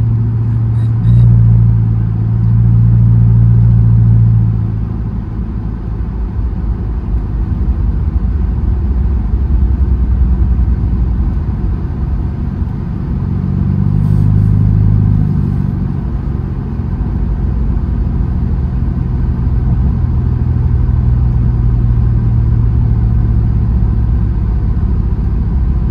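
2006 Dodge Charger R/T's 5.7-litre HEMI V8 running steadily under way, heard from inside the cabin over road noise. The engine note swells briefly about a second in and rises again around fourteen seconds in as the car picks up speed.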